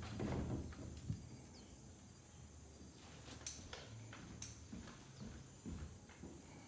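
Faint, irregular footsteps with rustling, and two sharp clicks about three and a half and four and a half seconds in.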